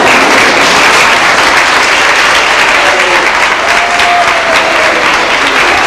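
Audience applauding: steady, dense clapping that continues throughout.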